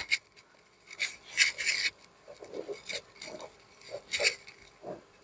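Small precision screwdriver turning screws out of a Romoss PMT75 power bank's plastic case, making short, intermittent scraping and clicking sounds as the screws are worked loose.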